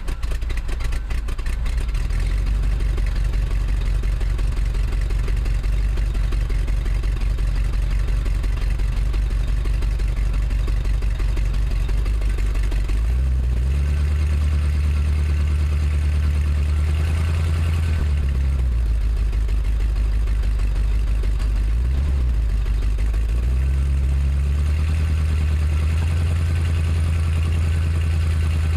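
Chevy 350 small-block V8 running with a misfire. The engine note steps up about halfway through, falls back, then rises again after a short dip near the end.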